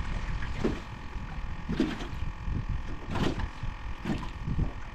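Wind rumbling on the microphone and choppy water splashing against a small boat's hull every second or so, over a faint steady whine from the bow-mounted electric trolling motor holding the boat on spot-lock.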